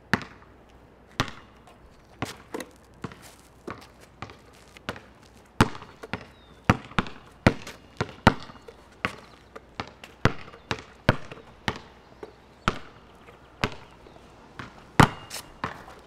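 A basketball being dribbled on a concrete court: sharp bounces at an irregular pace, about one or two a second.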